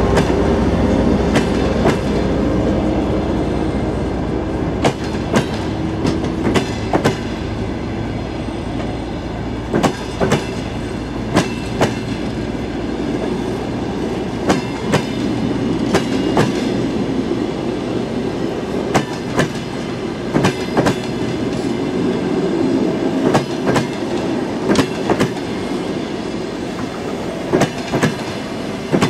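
Passenger train coaches rolling past, their wheels clacking over the rail joints in quick pairs and groups over a steady rumble. A low hum, plausibly the TEP70BS diesel locomotive's engine, fades away in the first few seconds.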